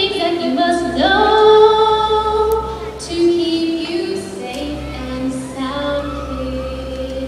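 A group of female voices singing long held notes together over musical accompaniment with a steady low bass.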